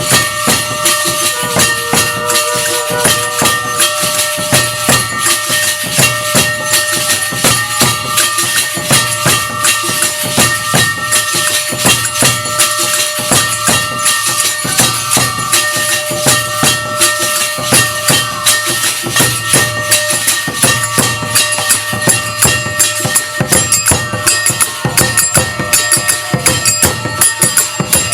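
Temple aarti music: jingling, rattling metal percussion and drums beating in a fast, even rhythm of about two strokes a second, over a few steady ringing tones.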